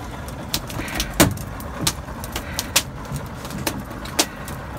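Fishing boat deck with a steady low rumble from the idling outboard engines and the wind, broken by irregular sharp knocks and clicks of gear against the deck and gunwale.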